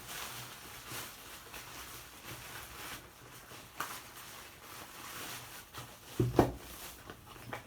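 Scattered faint clicks and rustling of handling the pneumatic nail gun and its nail strips while it is being reloaded, with a short knock near the middle and a louder knock about six seconds in.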